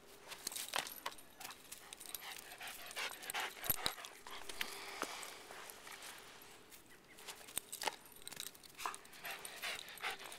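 A dog panting hard from running after a frisbee, with scattered rustles and small knocks of movement over grass and dry leaves.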